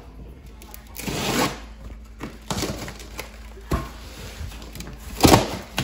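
A large cardboard shipping box being opened by hand: rustling and scraping of cardboard flaps, with a few sharp knocks, the loudest about five seconds in.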